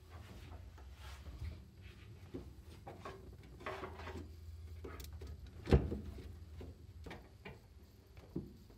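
Rustling and light knocks from working by hand in a car's footwell, test-fitting a bent wire template for a brake line. A sharper knock comes about six seconds in and another near the end.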